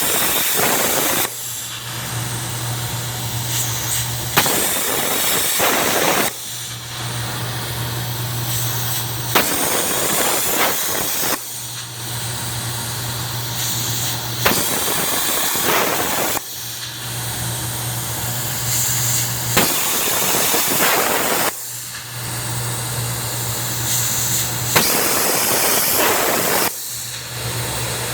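CNC pantograph cutting machine working through a repeating cycle. A steady low hum runs for about three seconds, then gives way to about two seconds of hissing, with a sharp click at each change; the pattern repeats roughly every five seconds.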